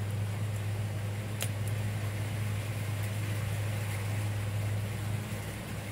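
Steady low hum with an even hiss behind it, and one faint click about a second and a half in.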